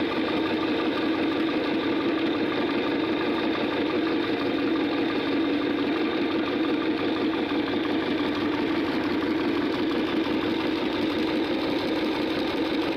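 Electric meat grinder running steadily with a constant motor hum, grinding biscuits. The sound stops abruptly right at the end.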